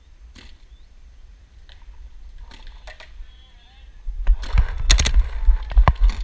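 Scattered faint pops of paintball markers firing across the field. About four seconds in, a sudden loud rush of wind buffeting the microphone, with quick footsteps and rattling gear as the player sprints to another bunker.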